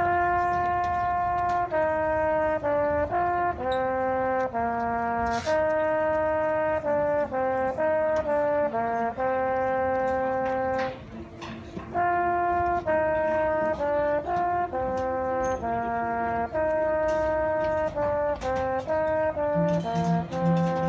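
Marching band brass playing a slow melody in unison, one line of held notes with a short break about eleven seconds in. A low held note joins near the end.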